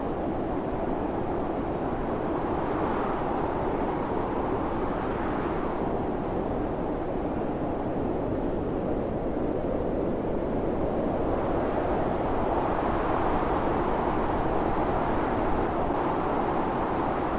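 Blizzard wind blowing steadily, swelling and easing in slow gusts every several seconds.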